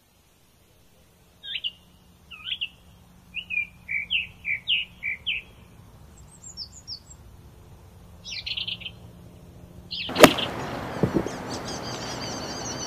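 Small birds chirping in short phrases. About ten seconds in comes one sharp crack of a 7-iron striking a golf ball off the tee, followed by a steady rushing noise.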